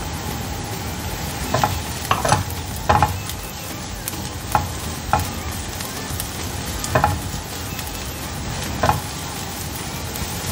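Minced garlic, shallot and shredded ginger sizzling steadily in a nonstick frying pan. A silicone spatula stirs them, knocking and scraping against the pan about eight times at irregular intervals.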